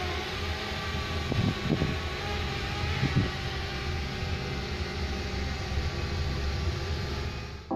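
DJI Spark quadcopter flying overhead, its propellers giving a steady whine of several mixed tones over a low outdoor rumble, with a few soft thumps in the first few seconds.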